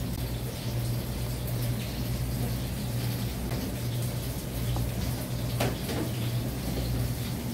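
Kitchen background noise: a steady low hum under an even hiss, with a couple of light clicks or clatters a little past the middle.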